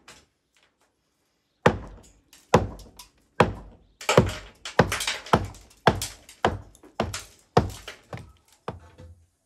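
Hammer blows knocking old cement render off the edge of a flat roof: about a dozen sharp, hard strikes, roughly one every half second to second, starting about a second and a half in.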